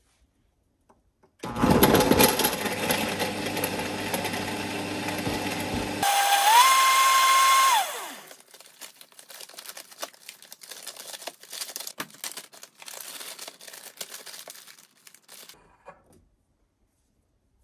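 A small electric motor, like a kitchen appliance's, runs for about four seconds. It then runs at a higher, whining speed for about two seconds and winds down quickly. Scattered light clicks and crackling follow for several seconds.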